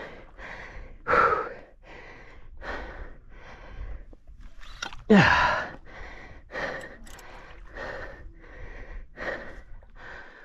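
A man breathing hard in quick, regular breaths, about two a second, out of breath from fighting a hooked fish on rod and reel. About five seconds in comes one louder breath with a falling voiced grunt.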